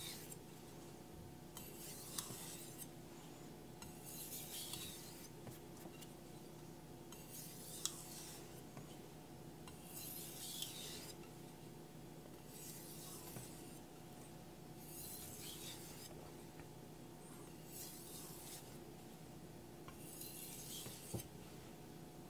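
Carbon steel kitchen knife drawn in light full-length strokes across a rinsed Naniwa Aotoshi whetstone, refining the edge: a soft, faint scraping hiss about every two and a half seconds, around nine strokes, with a few light clicks of the blade against the stone.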